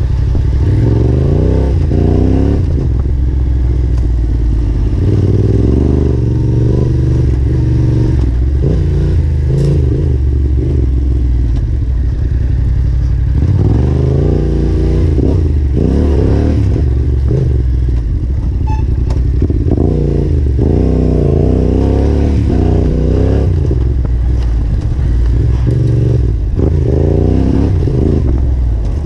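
Yamaha Ténéré 700 parallel-twin engine under load on a dirt trail, its revs rising and falling again and again as the throttle is opened and closed.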